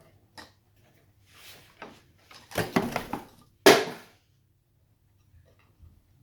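A parrot playing with a ball toy: a few light clicks, then a run of scuffling knocks and one loud sudden knock a little after halfway, which dies away quickly.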